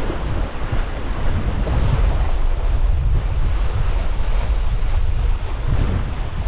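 Wind buffeting the microphone in a steady low rumble, with sea swell washing and breaking in whitewater against the rock ledge below.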